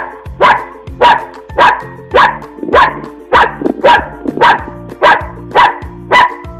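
A dog barking over and over at an even pace, about two barks a second, each bark short and sharp.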